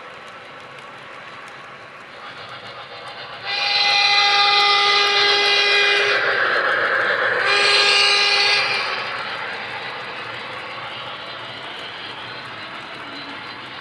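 Model train running on the layout, its onboard sound system sounding two loud blasts of a train whistle, the first about three seconds long and the second shorter, over the steady running rumble.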